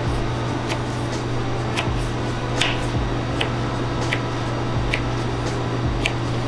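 Kitchen knife cutting down through diced fruit onto a plastic cutting board, a sharp click with each cut, about seven times at roughly one a second, over a steady low hum.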